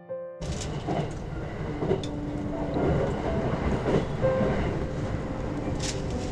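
Train running past at speed, a steady rush of wheels and carriages on the rails with a few sharp clicks. It starts abruptly about half a second in.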